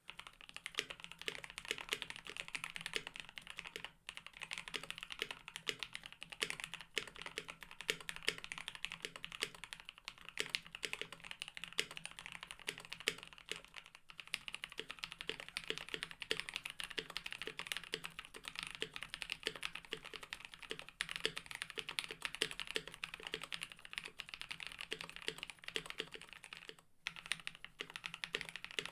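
Fast, continuous typing on a KBD67 Lite mechanical keyboard with lubed linear switches, a polycarbonate plate with a silicone mute layer, and GMK keycaps: a steady stream of keystroke clacks, broken by brief pauses about 4, 14 and 27 seconds in.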